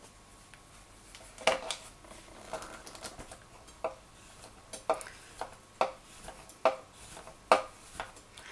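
Large kitchen knife chopping a bar of chocolate on a wooden cutting board: about nine sharp, irregular knocks of the blade hitting the board, the loudest near the end.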